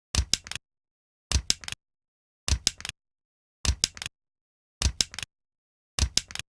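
A stapler pressed six times at an even pace, about one press a second: each press is a sharp clack followed at once by two or three lighter clicks as the staple is driven and the stapler springs back.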